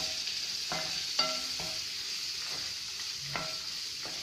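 Sliced onions and chillies sizzling in a non-stick kadai while a spatula stirs them, scraping and knocking against the pan several times. The sharpest knock comes about a second in.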